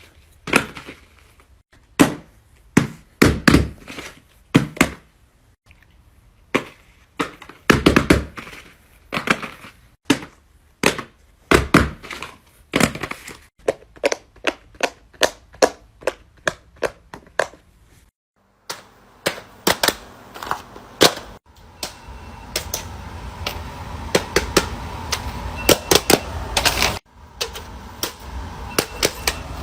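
Fidget toys being handled: a long run of separate sharp clicks, taps and pops, irregularly spaced. About 18 s in the sound cuts briefly and the clicks continue over a steady background hiss.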